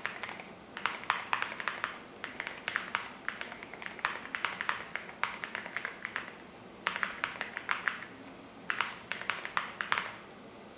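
Typing on a MonsGeek M1 V3 aluminum-case mechanical keyboard with Akko Botany switches: bursts of quick keystrokes with brief pauses between them.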